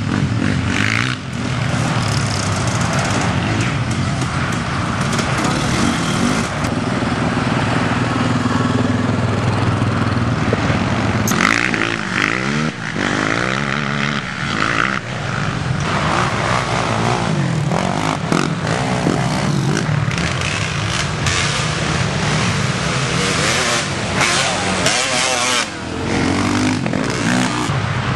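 Racing ATV engines revving up and down as quads pass one after another, the engine pitch rising and falling several times.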